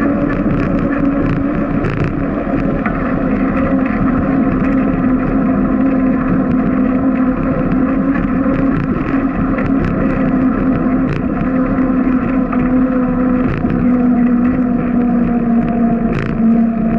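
Bicycle rolling at about 14 mph on a concrete path: a loud steady hum from the wheels whose pitch falls slightly as the bike slows, with occasional light clicks.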